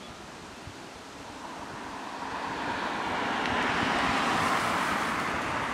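EN57 electric multiple unit passing on the line, a rushing noise of wheels on rails that grows steadily louder as the train nears and peaks near the end. Wind buffets the microphone underneath.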